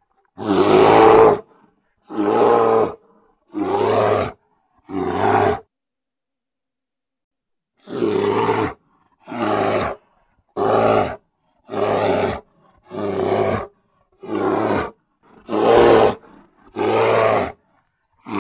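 Grizzly bear roaring in a string of about a dozen short, loud calls, each lasting well under two seconds, with a pause of about two seconds partway through.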